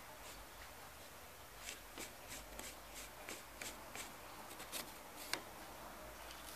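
Faint, irregular light clicks and taps, a few a second from about two seconds in, of small parts being handled on a homemade MDF mini lathe.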